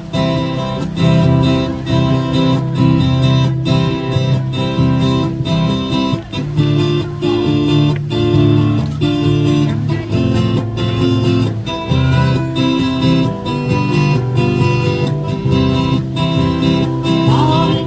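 Acoustic guitars strumming chords in a steady rhythm, playing the instrumental introduction of a Korean ballad before the vocals come in.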